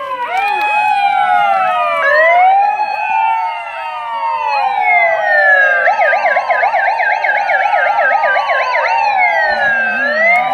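Several electronic sirens sound at once, their wailing rising and falling pitches overlapping. From about six to nine seconds in, one switches to a rapid warbling yelp.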